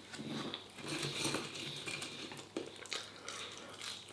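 Eating sounds: a mouthful of chilli dog being chewed, with a few light clicks.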